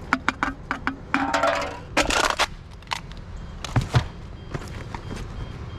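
Rummaging through a bag of discarded items: plastic crinkling and rustling with scattered clicks, a louder rustle about two seconds in, and two knocks about four seconds in.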